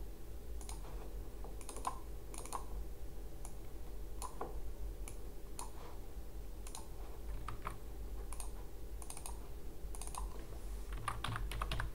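Typing on a computer keyboard: scattered key clicks at an uneven pace, over a faint steady hum.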